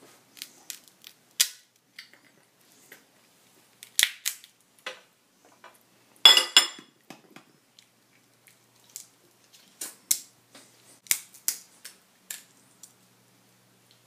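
Cooked Dungeness crab shell being broken and picked apart by hand, with scattered sharp cracks, snaps and clicks of shell and a small metal crab pick. The loudest is a brief grating crack about six seconds in.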